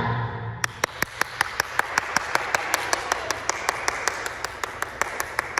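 A children's choir's last sung note dies away, then applause: a crowd clapping, with one close clapper beating a steady clap about five times a second.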